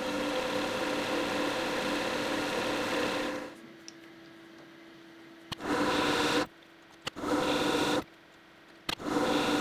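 Lathe turning a 3D-printed plastic pulley: the tool cuts steadily for about three and a half seconds, then only the lathe's hum is heard, then three short cuts of about a second each.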